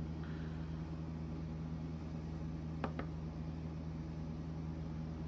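Steady low machine hum with several even tones, and two light clicks close together a little past the middle.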